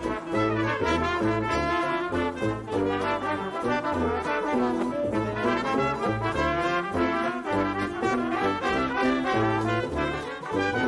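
Background music carried by brass instruments over a moving bass line, the notes changing in a steady rhythm.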